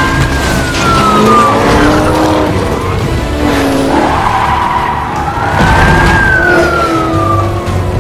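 Police car sound effects: the car speeds and skids, with a whining tone that rises and falls twice, over action music.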